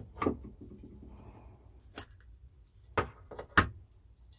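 Lid being worked off a metal tin of filler: a string of sharp metallic clicks and knocks, the loudest right at the start and about three and a half seconds in.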